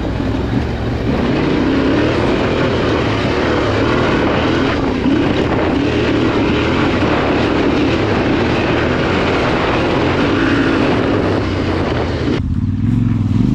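Trail motorcycle running under way, its engine note wavering up and down beneath heavy wind rush. Near the end the wind noise cuts off suddenly, leaving a steadier engine note.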